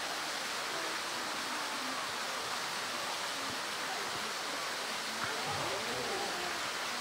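Steady rushing of running water, with faint distant human voices now and then.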